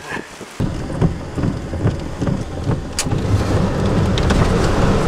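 Thunderstorm rain and wind: a low rumble of wind noise comes in suddenly about half a second in and builds, with raindrops ticking and a sharp click about three seconds in.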